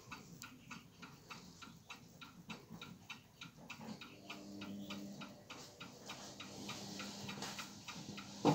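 Grandfather clock movement ticking with quick, even ticks. A low steady hum joins about halfway through, and a louder knock comes at the very end.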